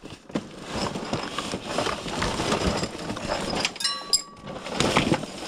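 Rummaging through stored boxes and bags: dense rustling, shuffling and knocking of items being moved and handled, with a brief metallic clink that rings for a moment about four seconds in.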